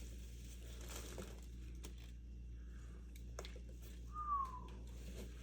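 Faint rustling and clicking of packaging being handled while unboxing, with one short squeak that falls in pitch about four seconds in.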